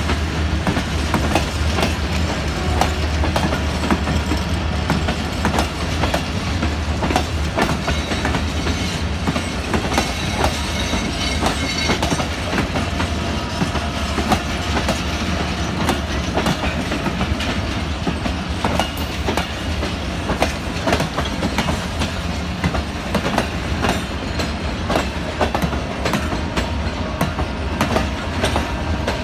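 Pakistan Railways passenger coaches rolling past: a steady low rumble with many sharp clicks of the wheels running over rail joints.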